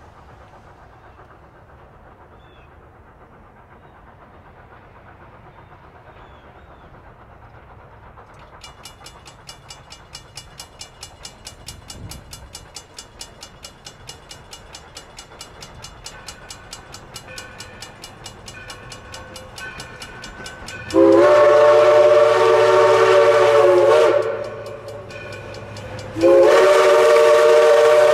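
Steam locomotive approaching, its exhaust beating in a steady rhythm that grows louder from about a third of the way in. Its steam whistle then sounds two long blasts, each a chord of several tones, the first about three quarters of the way in and the second near the end.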